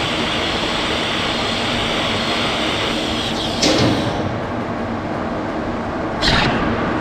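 TIG welding arc on stainless steel hissing steadily, then cutting off about three and a half seconds in. A short knock follows, then a steady workshop hum with another brief noise near the end.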